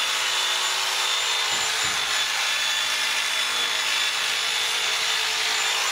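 Corded electric sheep-shearing handpiece running steadily: a motor whine with a hum beneath, as the cutter works through the fleece.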